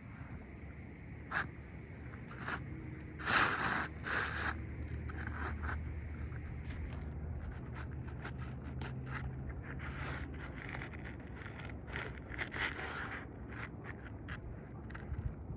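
An asphalt shingle being slid into place under the course above, with repeated irregular scraping and rustling against the roof, loudest about three to four seconds in. A low steady hum runs underneath.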